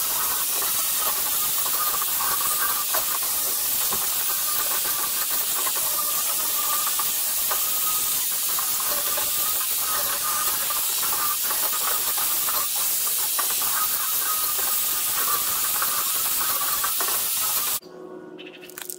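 Angle grinder fitted with a flap disc sanding the cut end of a steel coil spring: a steady grinding hiss with a thin whine. It stops abruptly near the end.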